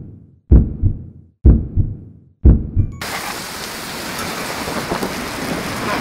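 Heartbeat sound effect: deep, muffled double beats about once a second, three of them. About three seconds in it stops abruptly and a steady rain-like hiss takes over.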